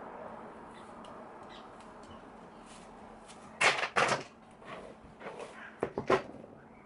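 Quiet room tone, then a string of short rustling, handling noises as long wig hair is moved and settled by hand, the two loudest a little after halfway.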